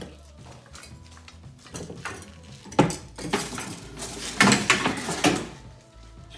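Hard metal objects clinking and clattering as things are rummaged through and shifted about, busiest and loudest from about three to five seconds in.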